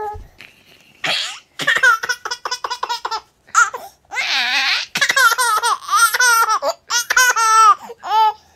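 A baby laughing in repeated short, high-pitched bursts while being tickled on the belly, starting about a second in.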